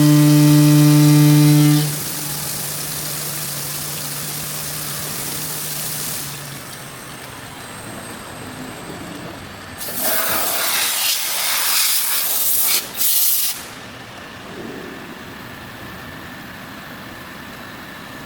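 CNC side groove milling and grinding machine: a steady motor hum stops about two seconds in, leaving a machine hiss. Past the middle comes a loud hiss in several bursts lasting about three seconds, then a lower steady noise.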